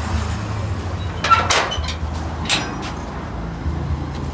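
A low, steady rumble with two sharp knocks, about a second apart, near the middle.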